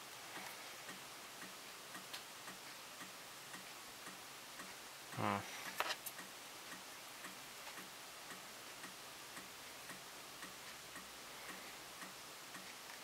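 Faint, steady ticking at an even pace throughout, with a brief low hum-like sound about five seconds in and a small click just after.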